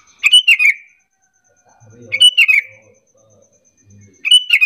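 Sooty-headed bulbul (kutilang) calling three times, each a short phrase of quick falling notes about two seconds apart: a lure call meant to make other bulbuls answer.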